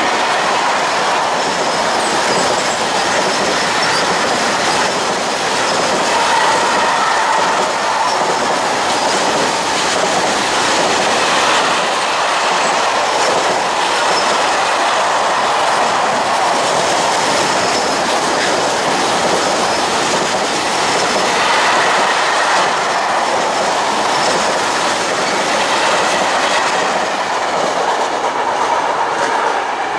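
Freight train of covered wagons rolling past: a steady loud rumble of wheels on rail with clickety-clack over the rail joints and a faint high squeal from the wheels. It drops off at the very end as the last wagon goes by.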